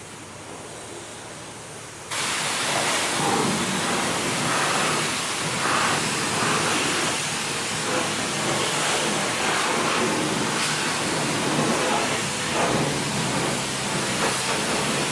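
High-pressure water wand at a self-service car wash spraying a car: a softer hiss at first, then about two seconds in the full spray cuts in loudly and keeps going as an uneven, shifting hiss. A low steady hum joins near the end.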